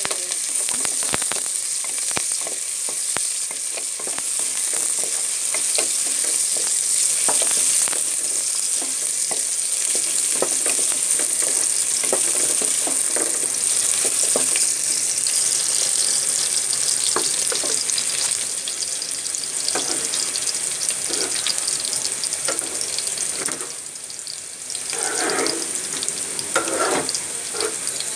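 Sliced onion frying in hot soybean oil in a pan: a steady sizzle with frequent scraping as it is stirred. There is a short lull a little before the end, then a few louder knocks.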